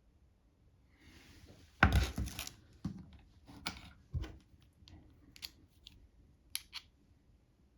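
Small tools and parts being handled during laptop disassembly: a brief rustle, a loud clack about two seconds in, then a run of sharp light clicks and taps.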